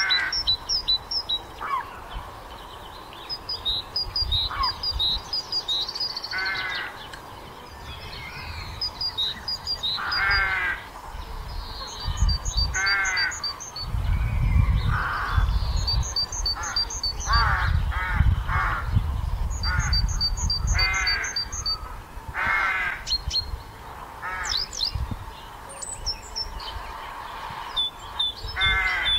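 Birdsong: a small songbird's quick runs of high repeated notes, cut across every few seconds by loud, harsh calls of a larger bird. A low rumble sits under the middle stretch.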